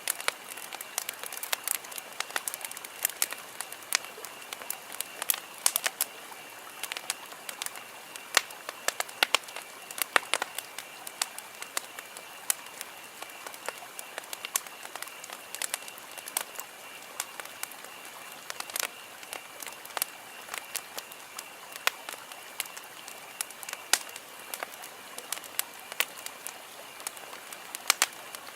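Wood campfire crackling and popping, with irregular sharp snaps over a low hiss. A faint steady high-pitched tone runs underneath.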